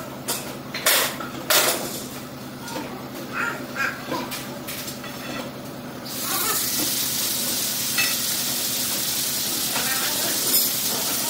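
Steel pry bars knocking against a CNC press brake and its wooden blocks as it is levered across the floor, with a few sharp clanks and some workers' voices. About halfway through, a loud steady hiss sets in suddenly and continues.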